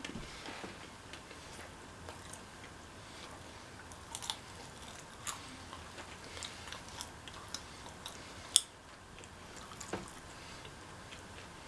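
Chewing a milk chocolate bar with popping candy in it, with small sharp pops and crackles scattered through. One click about three-quarters of the way through is much louder than the rest.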